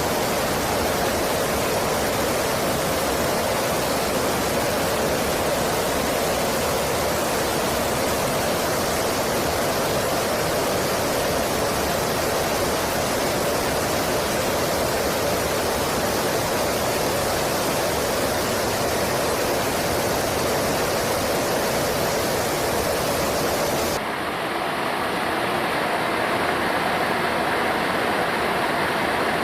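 Steady rushing roar of jet engine noise. About 24 seconds in it cuts abruptly to a duller roar with much less hiss.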